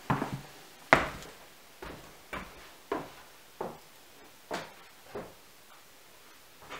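Footsteps in rubber boots knocking on a bare wooden plank floor, one step every half second to a second, growing fainter as the walker moves off, with the loudest knock about a second in.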